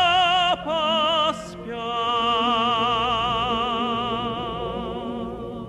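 Tenor soloist singing the end of a refrain in a full operatic voice with wide vibrato, breaking off on the last syllable about a second and a half in. A male choir and orchestra then hold a sustained chord that slowly fades.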